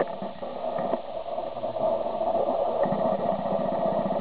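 Steady rushing noise from the camera's own microphone, with a constant drone running through it.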